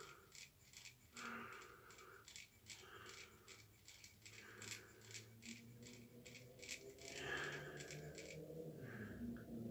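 Faint, rapid clicking and scratching of a comb worked through short cropped hair to spread hair-building fibres, about three or four strokes a second, stopping a little before the end.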